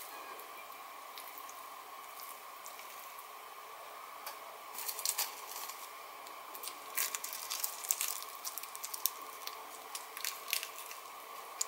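A metal spoon stirring sticky seasoned rice in a ceramic bowl with soft squishing, then sharp crisp crackles from about five seconds in as sheets of dry roasted seaweed (gim) are pulled from a plastic container and wrapped around a spoonful of rice. A faint steady hum runs underneath.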